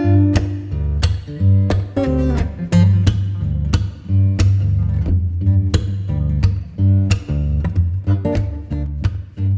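Background music led by plucked guitar with a strong bass line and a steady beat.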